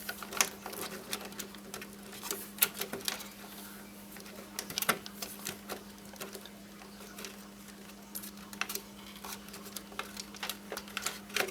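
Irregular small clicks, taps and scrapes of a CPU liquid cooler's mounting hardware being handled and twisted into place, over a steady low hum.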